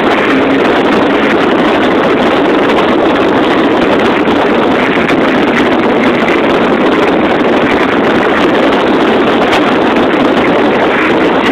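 Loud, steady rushing noise of a vehicle at speed, heard from inside the cabin: wind and road noise blended with the engine's drone.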